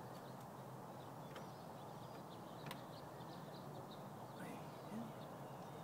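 Quiet outdoor background with faint bird chirps and two light clicks, about a second and a half and nearly three seconds in, as a tandem's front fork is seated in a roof-rack fork mount.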